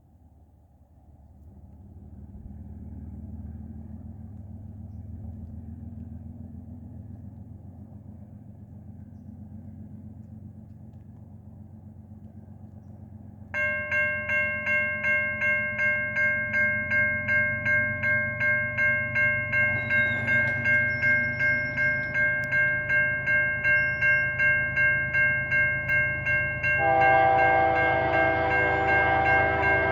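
An approaching CN ES44DC diesel locomotive with a low engine rumble that builds. About halfway in, its Nathan K3L three-chime air horn comes on suddenly and is held, swelling and fading about twice a second. Near the end the horn chord drops in pitch and grows louder as the locomotive passes.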